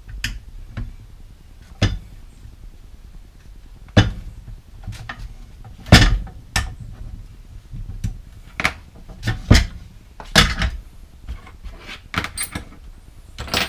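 Roof bike rack parts being fitted together by hand, giving a string of irregular sharp knocks and clacks, the loudest about 4, 6 and 10 seconds in.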